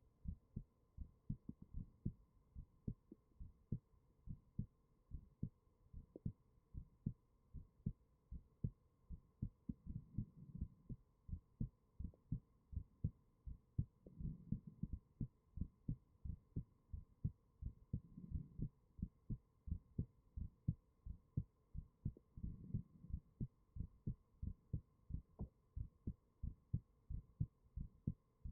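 A person's heartbeat: a steady run of soft, low thumps, with a slow low swell about every four seconds and a faint steady hum underneath.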